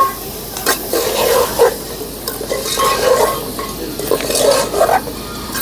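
Steel spoon stirring soya chunks and masala in an aluminium pot, scraping and clinking against the pot's sides in irregular strokes, over a light sizzle.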